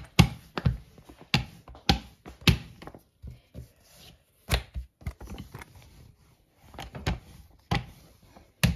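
A green silicone rolling pin rolling out a sheet of dough on a silicone baking mat, making a series of irregular knocks and thuds as it is pushed back and forth and set down.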